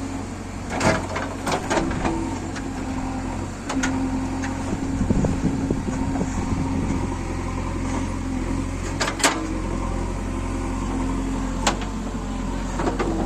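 JCB 3DX backhoe loader's diesel engine running steadily while it digs, with several sharp knocks.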